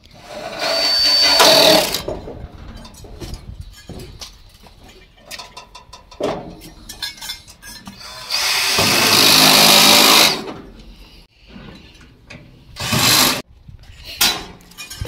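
Cordless power drill/driver running in short bursts while driving screws during assembly of a metal gas grill: about two seconds near the start, again for about a second and a half in the middle, then a couple of brief bursts near the end, with small clicks of parts in between.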